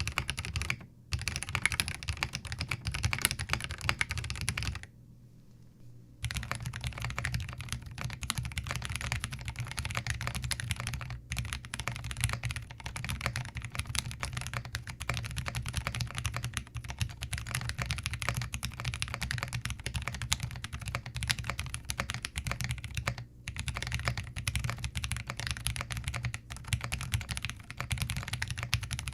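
Continuous fast typing on a Zoom TKL mechanical keyboard, a dense stream of key clacks. It stops for about a second roughly five seconds in, and then resumes on Everglide Oreo switches, after Novelkeys Cream switches before the pause.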